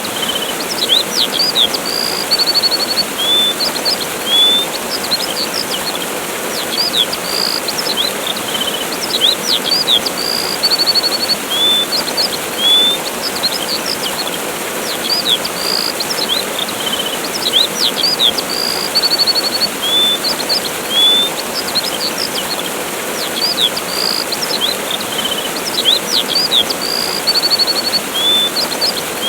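Steady rush of a waterfall with small birds chirping over it: short high chirps, quick glides and trills coming in clusters.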